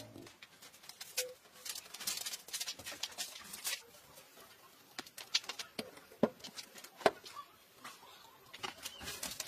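Irregular light clicks and taps, like things being handled and set down, with a couple of louder knocks about six and seven seconds in. A low hum stops right at the start.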